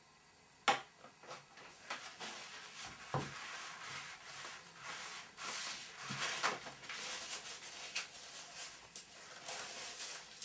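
Toilet paper being unrolled, rustling and torn into pieces, with one sharp knock shortly before the rustling starts.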